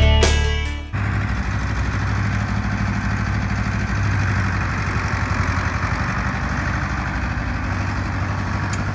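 Background guitar music cuts off about a second in, giving way to a vehicle engine idling steadily.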